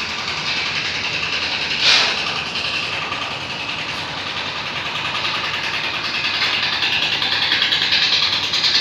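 Motorboat engine running steadily with a fast, even throb, with one brief louder surge about two seconds in.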